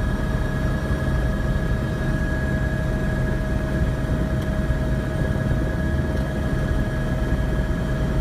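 Police helicopter's engine and rotor drone, steady and even, with two steady whining tones over it.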